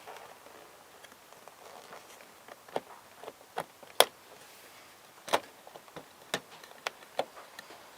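A plastic inner door handle on a 1999 Chevy Prizm clicking and knocking as it is pushed and worked into its seat in the door. About ten sharp clicks start a few seconds in, the loudest about four seconds in.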